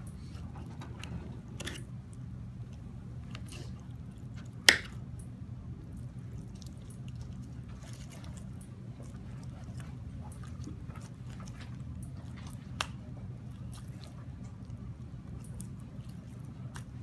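Boning knife cutting and scraping through raw chicken leg meat on a plastic cutting board: soft wet squishes and faint scattered clicks, with one sharp click about five seconds in and a smaller one near the end, over a steady low hum.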